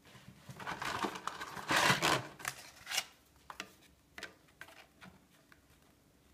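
Dry lasagna sheets being laid and shifted by hand in a ceramic baking dish over shredded cheese: rustling and scraping, loudest about two seconds in, then scattered light clicks and taps as the sheets are pressed flat.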